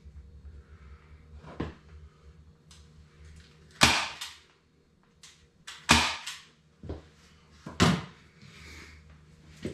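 Three sharp knocks about two seconds apart, each ringing out briefly, with lighter clicks and taps between them.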